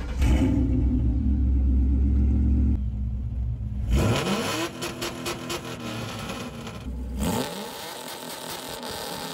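Ford Crown Victoria 4.6-litre V8 just started and running, then revved up in neutral about four seconds in and held at higher revs, rising again near seven seconds, with no early cut from the limiter: the low neutral rev limiter has been raised in the tune.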